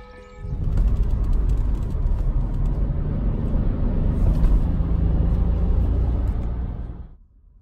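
Car driving along a narrow paved road, heard from inside the cabin: a steady low rumble of tyres and engine that cuts off suddenly near the end.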